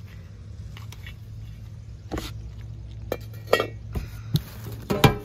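Hard Christmas items, a ceramic village house and metal tins, knocking and clinking as they are handled and set down in a cardboard box: about half a dozen sharp knocks starting about two seconds in, the loudest near the end, over a steady low hum.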